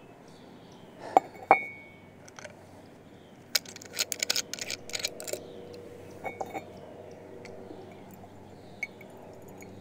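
A ceramic mug clinks twice against a hard surface as it is set down, about a second in. Then comes a run of quick clicks and small rattles as a small hand-held case is handled and opened, with a few more clicks later on.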